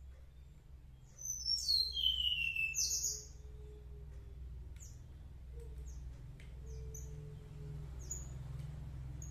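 A bird calling outdoors: a quick run of high chirps and falling whistles lasting about two seconds, starting about a second in. A low steady hum runs underneath.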